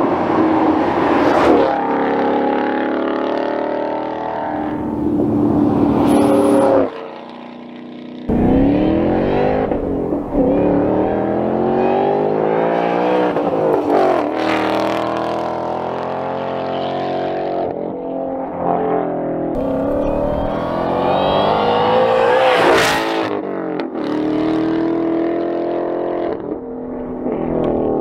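Shelby Mustang Super Snake's supercharged V8 accelerating hard through the gears: its note climbs and drops back at each shift, several times over. The engine sound falls away briefly about seven seconds in.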